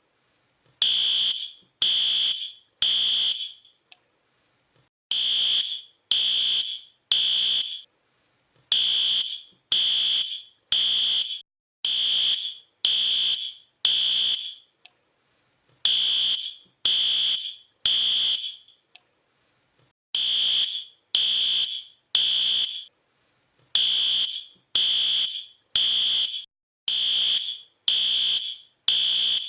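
Fire alarm sounding: loud, high-pitched beeps about one a second, mostly in groups of three with short pauses between them, the temporal-three evacuation pattern.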